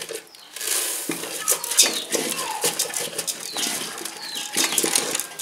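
Wooden spoon stirring oily rice in a metal pot, with many quick scrapes and knocks against the pot's sides and bottom.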